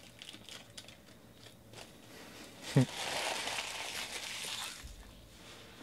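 Foil wrapper of a trading-card pack crinkling as it is handled and torn open, then a short sharp knock about halfway through, followed by about two seconds of heavier crumpling and rustling.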